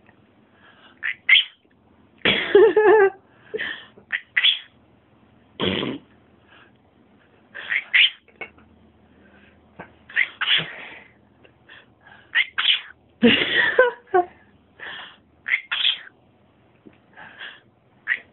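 Cockatiel gibbering in many short chattering bursts, with several sneezes mixed in; the loudest, noisiest ones come about two and a half and thirteen seconds in.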